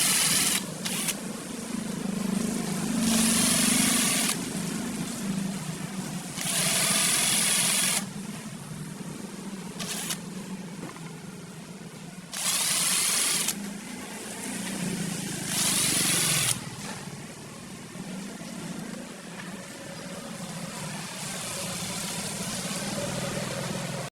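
An electric power tool working wood: a steady motor hum throughout, broken by about five short bursts of harsh noise, each lasting a second or so.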